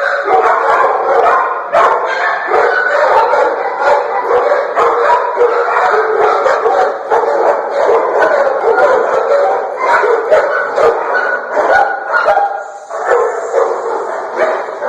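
Many shelter dogs barking and yipping at once, a continuous overlapping din with no break.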